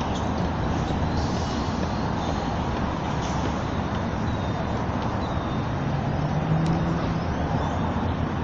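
Steady rumble of road traffic, with a vehicle's engine drone swelling briefly about six seconds in.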